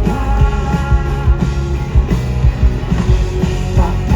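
Live rock band playing loudly, with driving drums, bass and electric guitars, in a short instrumental stretch between sung lines.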